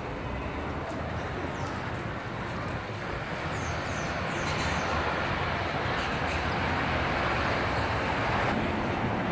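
City street ambience: a steady wash of traffic noise that grows a little louder about halfway through.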